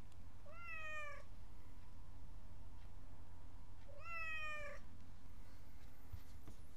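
Tabby cat meowing twice, two short calls about three and a half seconds apart.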